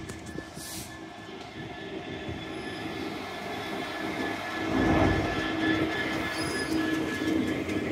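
EWS Class 66 diesel-electric freight locomotive (EMD two-stroke V12) passing slowly at close range. Its wheels squeal in steady high-pitched tones over the rumble of the engine, which gets louder about five seconds in as the locomotive's body goes by.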